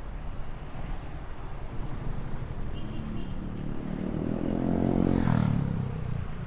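A motor vehicle's engine passes close by the bike, building to its loudest about five seconds in and dropping away, over steady road and wind noise.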